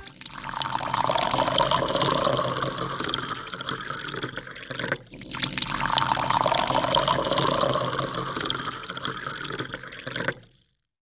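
Rushing, splashing water sound effect for a logo animation, in two long swells with a short break about five seconds in; it cuts off near the end.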